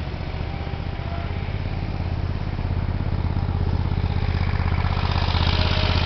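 An engine idling steadily: a low, rapidly pulsing hum that grows slightly louder toward the end.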